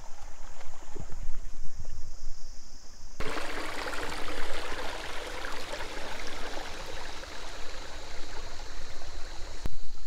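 Small mountain stream trickling and splashing over rocks, coming in suddenly about three seconds in and running steadily after that. Before it, a low rumble with scattered light knocks of footsteps on loose stones.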